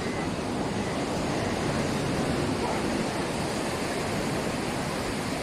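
Steady rushing wash of sea surf along the shore, with a faint murmur of people's voices in the background.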